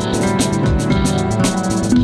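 Background music with a drum beat and sustained instrument notes.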